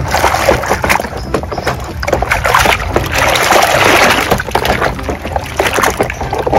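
Hands scrubbing and squeezing a furry plush toy in a basin of soapy water: continuous irregular sloshing and splashing.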